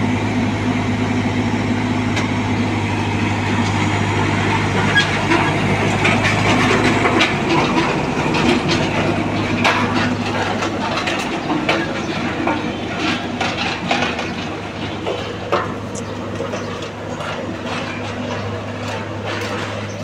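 Diesel engine of a Hamm HD 99 tandem road roller running at a steady drone as the roller drives over loose gravel. Scattered crunching clicks are heard from about a quarter of the way in, and the sound gets a little quieter in the second half.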